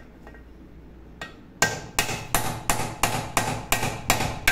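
Quiet at first, then from about a second and a half in, a steady series of hammer blows, about three a second, knocking at a pressure cooker's broken handle to break it off.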